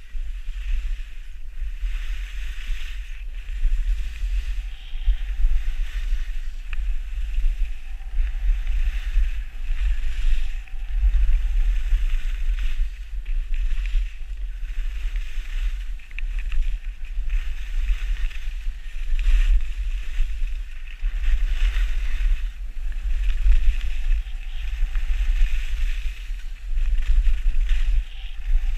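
Wind buffeting an action camera's microphone during a fast ski run downhill, a heavy low rumble that swells and dips, with the hiss of skis sliding over packed snow.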